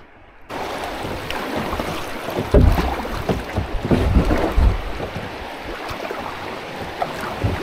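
Water rushing and splashing around a kayak on a river, with wind buffeting the microphone in heavy low thumps. It starts abruptly about half a second in.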